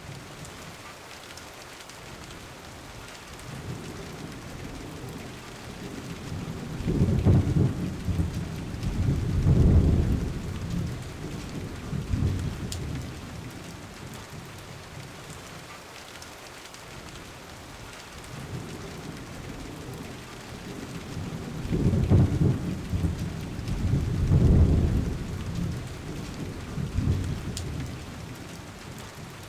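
Steady rain, with two low rolls of thunder swelling and fading, one about seven seconds in and another about twenty-two seconds in, each lasting several seconds.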